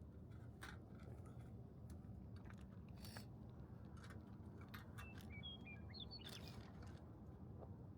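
Faint bird chirping, a short cluster of quick high calls about five seconds in, over a low steady rumble, with a few soft clicks.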